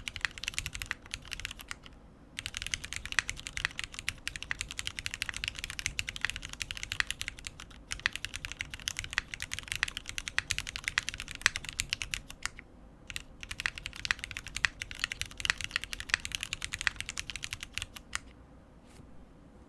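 Typing on a mechanical keyboard with lubed Cherry MX Black linear switches in an aluminium plate, capped with GMK keycaps: a fast, steady patter of keystrokes. It pauses briefly about two seconds in and again around twelve and a half seconds, then stops about eighteen seconds in.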